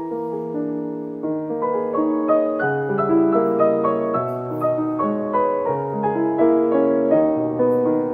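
Background piano music: a melody over chords, note after note at an even pace.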